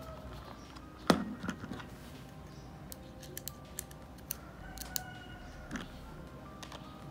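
Clicks and taps of a screwdriver working screws into a plastic car-trim piece as a tweeter speaker is fastened in. The loudest is a single sharp knock about a second in. Soft background music with held notes plays underneath.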